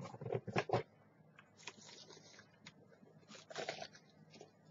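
Cardboard shipping box and plastic mail bags being handled: a few knocks in the first second, then rustling of the packaging twice.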